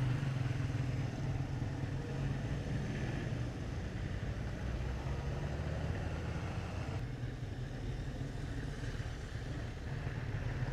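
Road vehicle engine running steadily, a low rumble with hiss above it; the higher hiss drops away about seven seconds in.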